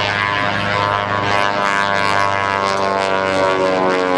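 Beechcraft Model 18's twin Pratt & Whitney R-985 radial engines and propellers droning steadily as the plane climbs in a pull-up. The pitch drifts slowly throughout.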